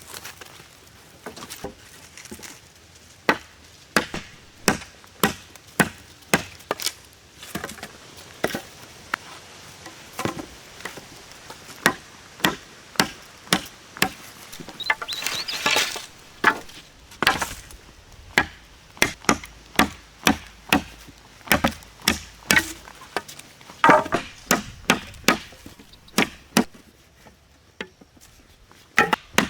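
Wood being chopped with a bladed tool: a long run of sharp chopping strokes, about one or two a second, with a longer, noisier sound about halfway through and a short pause near the end.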